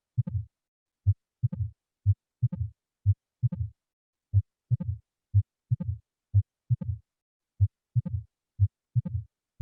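Recorded heart sounds for auscultation training: a slow, regular lub-dub about once a second, the second sound of each beat trailed by a short fading sound.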